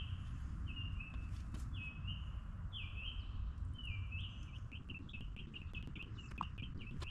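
A songbird calling repeatedly: a run of falling notes about one a second, quickening into a fast series of short notes after about four seconds, over a steady low background rumble.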